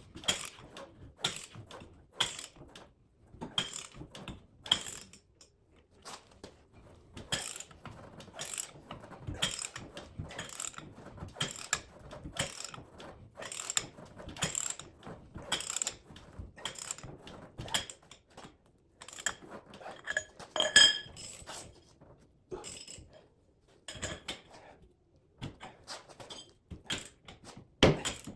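Hand ratchet wrench clicking in irregular runs of short strokes as a bolt is run down tight.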